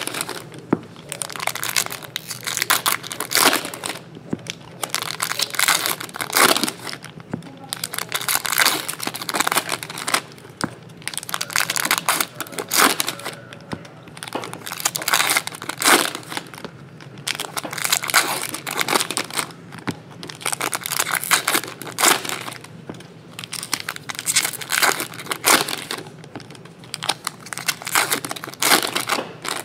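Foil trading card pack wrappers being torn open and crinkled by hand, pack after pack, in irregular bursts of crackling about once or twice a second.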